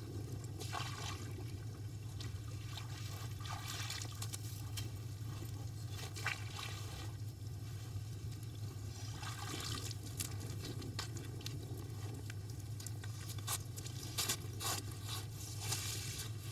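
Scattered scraping and dripping of water and slush, with short clicks that come more often in the second half, over a steady low hum.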